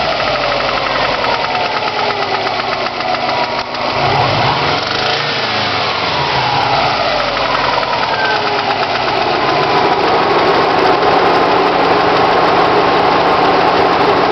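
Engine running with a fast, even knock through its note. Its speed drops, rises and drops again over the first several seconds, then holds steady. The knock is the fault the owner points to: a knocking engine.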